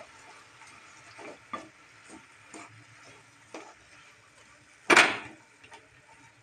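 Wooden spatula stirring and scraping chopped banana flower and onion around a nonstick kadai, in scattered short scrapes over a faint sizzle of frying. One much louder scrape comes about five seconds in.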